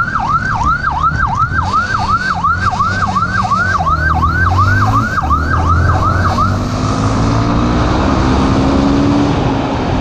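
Police motorcycle siren on a fast yelp, rising and falling about three times a second, cutting off about six and a half seconds in. The motorcycle's engine and wind noise run underneath, and the engine pitch climbs slowly once the siren stops.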